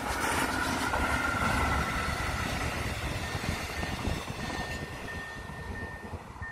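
Mugunghwa-ho passenger train hauled by an electric locomotive passing close by: wheels rumbling and rattling over the rails, loudest a second or two in, then fading as the coaches draw away. In the last couple of seconds a level-crossing warning bell rings in a steady repeating tone.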